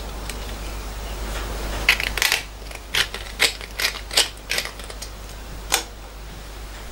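A small steel bracket and hand tools clinking against a steel milling-machine vise as they are handled: about ten irregular, sharp metallic clinks over a few seconds, over a low steady hum.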